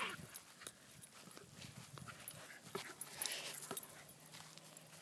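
A dog breathing hard as it chases and pushes a basketball about on grass, with scattered soft knocks and rustles.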